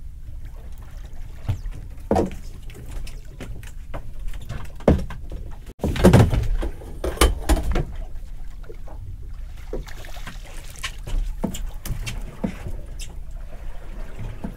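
Splashing and sloshing water as a pollock is scooped out of the sea in a landing net beside a small boat, with scattered knocks against the hull over a steady low rumble of water on the hull. The loudest splashing comes about six seconds in.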